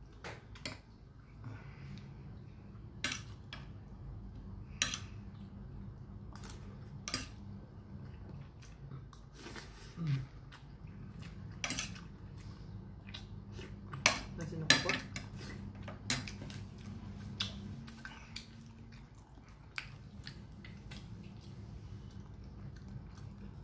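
Close-up eating sounds: biting and chewing food eaten by hand, with many sharp irregular mouth clicks and smacks, the loudest cluster a little past the middle, over a steady low hum.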